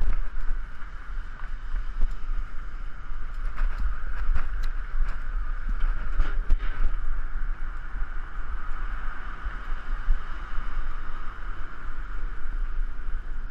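Wind rushing over a GoPro's microphone on a moving bicycle: a steady low rumble with a hiss over it, and several sharp knocks between about three and seven seconds in as the camera jolts.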